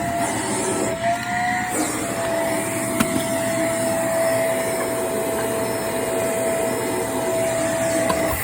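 Vacuum cleaner running on carpeted stairs: a steady rushing suction noise with a steady motor whine whose pitch shifts briefly about a second and a half in, and one sharp click about three seconds in.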